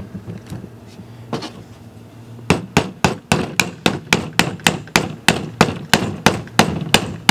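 Repeated blows driving an old hatchet head down onto a new hickory handle: a few separate knocks at first, then a steady run of about three or four strikes a second from a little over two seconds in.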